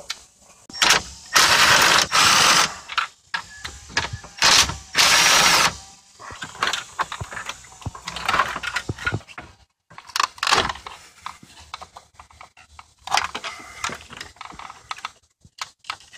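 Cordless drill-driver spinning out the screws that hold the car radio in the dash, in two runs of about a second and a half each near the start. After that comes a string of clicks and rattles as the radio unit and its brackets are worked loose.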